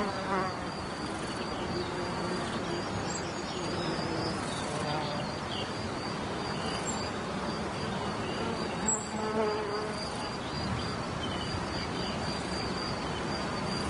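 Meadow insects buzzing, flies and bees, over a steady high-pitched insect song. A louder buzz passes close about nine seconds in.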